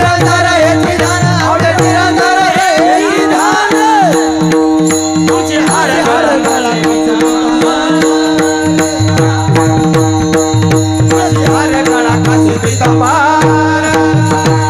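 Marathi Varkari kirtan music: a male voice sings gliding devotional phrases over a steady harmonium drone, with a hand drum and small hand cymbals keeping an even beat. The singing comes and goes, with stretches of the instruments alone in between.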